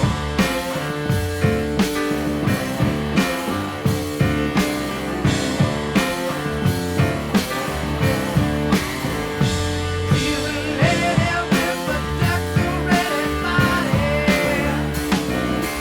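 1970s hard rock band recording: drum kit, bass and electric guitar playing a steady beat of about two drum hits a second. About ten seconds in, a wavering melody line enters above the rhythm.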